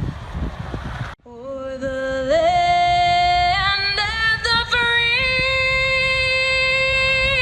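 A woman singing the national anthem solo over the public-address system, holding long notes with vibrato and stepping up in pitch. It begins suddenly about a second in, after outdoor wind noise cuts off.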